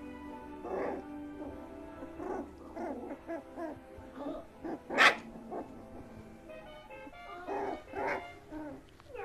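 Three-week-old dachshund puppies yipping and barking in a string of short, high calls, the loudest about five seconds in, over background music.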